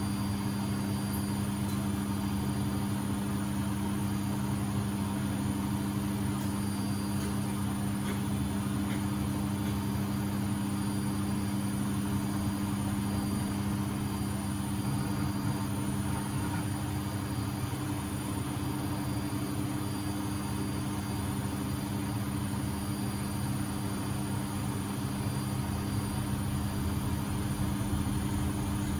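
Beko WMB71642W washing machine in its final spin at 1000 rpm: the drum and motor run at a steady speed with a constant hum that holds one pitch.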